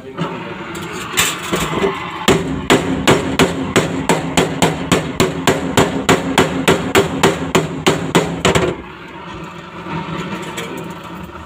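Chipping hammer striking a freshly welded seam on a car's sheet-metal floor pan, knocking off welding slag: a long run of quick, evenly spaced blows, about four a second, with the panel ringing under them, stopping a few seconds before the end.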